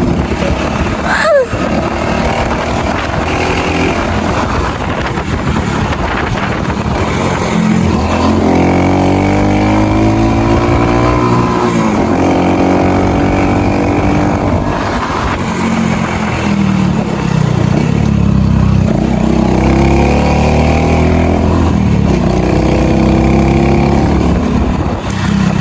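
Small single-cylinder motorcycle engine of a Honda Pop 110i running, its pitch climbing and falling back several times as it is revved up and eased off. A brief sharp rising chirp sounds about a second in.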